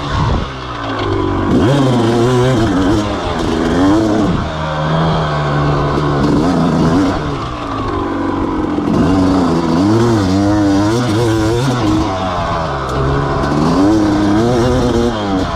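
A 250 cc two-stroke motocross bike being ridden hard. Its engine revs up and drops back over and over as the throttle is opened and shut.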